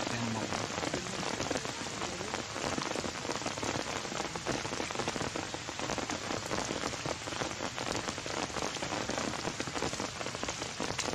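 Heavy rain falling steadily, an even hiss of drops with no let-up.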